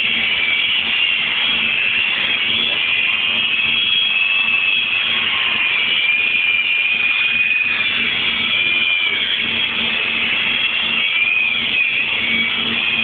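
Steady, unbroken noise of self-shielded flux-cored (Innershield) arc welding, with a high wavering whine and a low steady hum under it.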